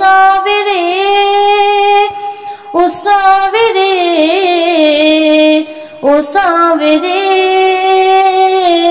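A woman singing a Hindi Shyam bhajan in long, held, wordless vowel phrases with gliding, wavering pitch, pausing for breath about two seconds in and again near six seconds.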